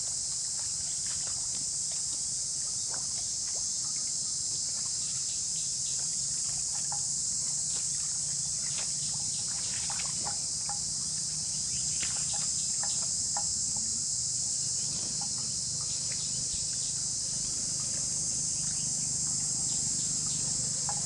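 Steady high-pitched insect chorus, with short crisp snaps scattered through it from a water buffalo tearing and chewing grass, and a low steady hum underneath.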